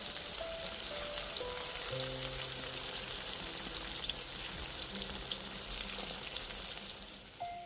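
Food frying in hot oil in a pan, a steady sizzle with crackles, which dies away near the end.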